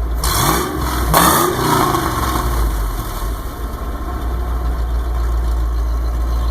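1995 Ford F-150 engine blipped twice in quick succession in the first two seconds, the revs rising and falling, then settling back to a steady idle. Its vacuum leak in the Thermactor air-injection system gives it a lumpy, cam-like sound.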